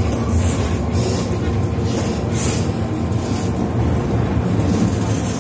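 MTR M-Train heard from inside the passenger car while running: a steady low rumble of wheels on the track, with short bursts of high hiss about two seconds in.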